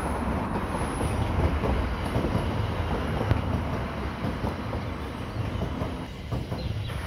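Electric passenger train running along the tracks: a steady rumble of wheels on rail, easing slightly about six seconds in.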